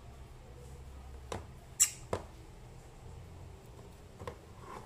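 A few short, sharp clicks and taps of handling, the loudest about two seconds in, over a quiet room.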